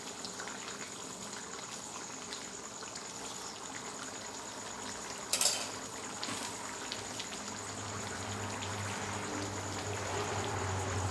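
Chicken curry bubbling at a simmer in a wok, a steady bubbling hiss, with one sharp clack about five and a half seconds in.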